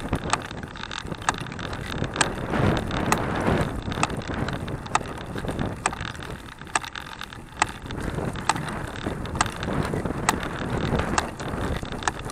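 Handbike rolling along a dirt and gravel road: a steady rough tyre and chain noise with wind on the microphone, and a sharp light click about once a second in time with the hand cranks' turning.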